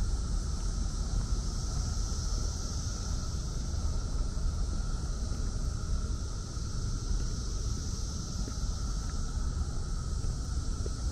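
A dense chorus of Brood X periodical cicadas: a steady, unbroken high-pitched buzz with a lower droning band beneath it, over a low rumbling noise.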